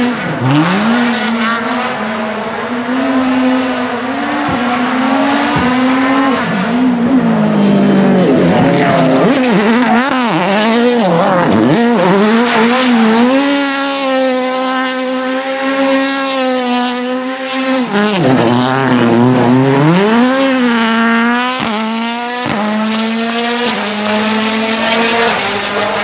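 2019 M-Sport Ford Fiesta WRC's 1.6-litre turbocharged four-cylinder engine held at high revs through donuts, tyres screeching as the car spins on the spot. The revs drop and climb back a few times, with a few sharp cracks.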